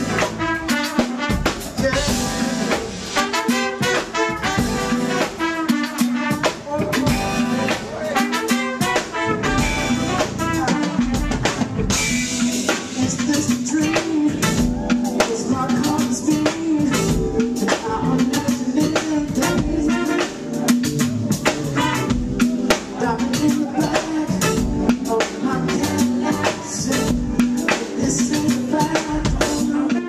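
Live neo-soul band playing with a drum kit keeping a steady beat over guitar and bass, and a male singer's vocals over it.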